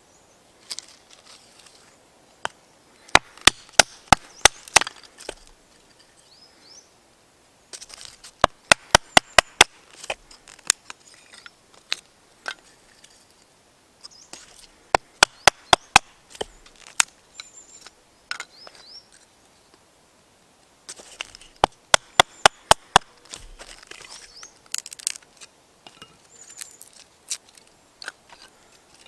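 Wood being chopped for the fire: four bursts of six or seven quick, sharp strikes, about four a second, with rustling and lighter knocks between the bursts.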